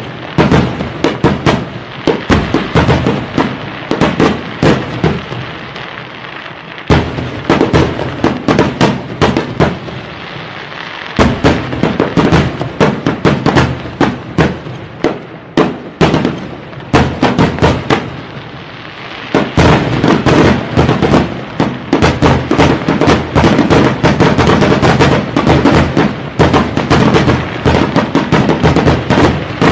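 Fireworks going off in a rapid string of bangs and crackling pops. From about two-thirds of the way in they thicken into an almost continuous barrage.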